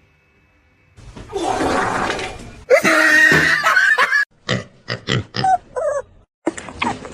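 An animal's calls: a noisy rush of sound, then one loud pitched call of about a second and a half, followed by several short calls.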